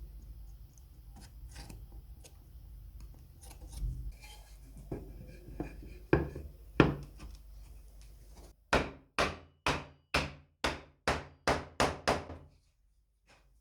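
Hand rubbing strokes on wood: scattered scrapes and light knocks, then a run of about ten quick, even strokes in the second half that stops suddenly.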